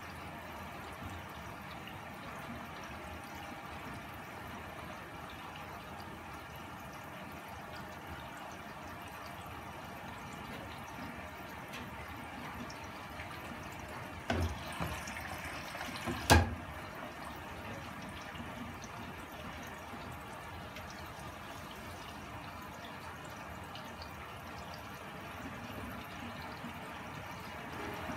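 Primus P6 commercial front-loading washing machine tumbling its load, with water splashing in the turning drum. Two sharp knocks come about fourteen and sixteen seconds in, the second the loudest.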